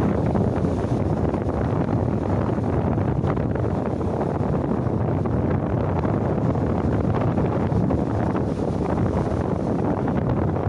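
Steady wind noise rumbling on the microphone at the seashore, with Mediterranean sea waves washing under it.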